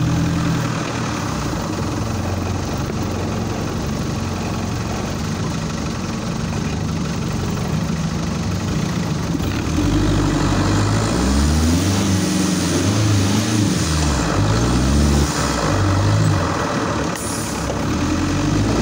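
Off-road vehicle's engine running steadily at low revs, then revving up and down several times in the second half as it works over sandy mounds.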